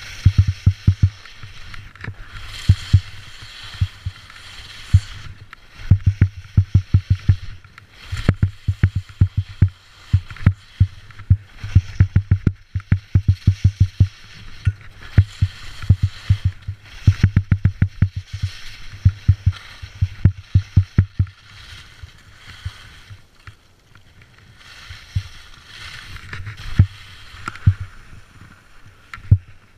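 Skis scraping and skidding over hard-packed snow during turns on a steep slope, with runs of rapid low knocks and chatter between swells of hiss.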